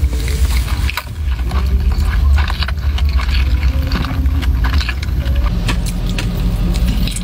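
Close-up chewing and crunching of crisp food, many small crackling clicks, over a steady low rumble of a car idling.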